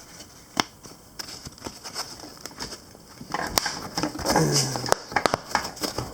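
Old, brittle plastic seat trim and clips being pried with a flathead screwdriver: scattered sharp clicks and snaps, with a louder stretch of scraping and rustling about halfway through that includes a brief low creak.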